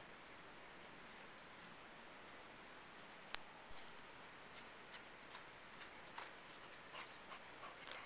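Faint hiss with scattered soft crunches of a boxer dog's paws in snow, growing more frequent over the last few seconds as it runs. One sharp click about three seconds in is the loudest sound.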